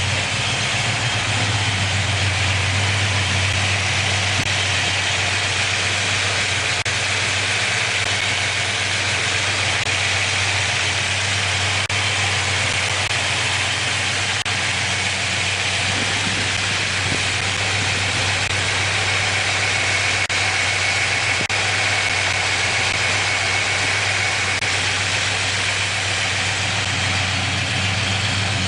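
Plymouth 318 polyspherical ("Poly") V8 idling steadily, freshly rebuilt with pistons .060 oversize and running after the build.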